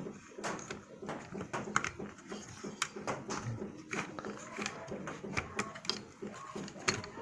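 Irregular light clicks and taps of plastic parts being handled as the arms of a Bruder toy skid steer loader are worked into line with their mounting holes.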